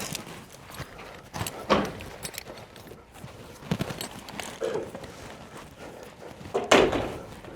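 Irregular hollow knocks and clunks from someone climbing up and working on the screen frame, with two louder knocks, about two seconds in and near the end.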